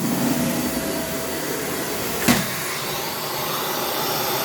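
Dyson Ball Animal upright vacuum cleaner running steadily while vacuuming, with one sharp click about halfway through.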